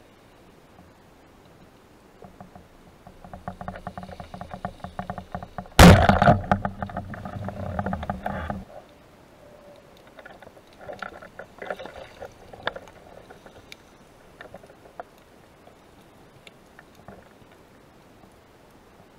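Underwater clicks and rattling that quicken, then a sharp loud knock about six seconds in followed by a few seconds of loud rushing noise that cuts off suddenly, then scattered clicks.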